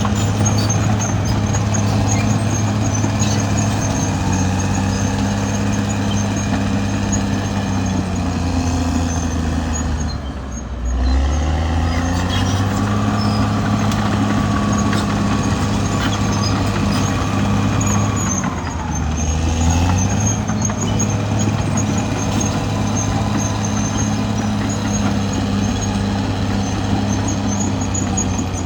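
Caterpillar D6R XL bulldozer's diesel engine running steadily, dropping in pitch briefly about ten seconds in and again about nineteen seconds in. A steady higher whine runs over it from about twelve to eighteen seconds in.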